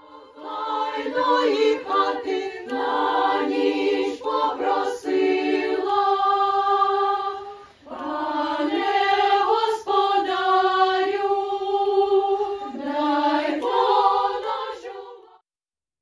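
Children's choir singing together in two long phrases, with a short pause for breath about eight seconds in; the singing stops shortly before the end.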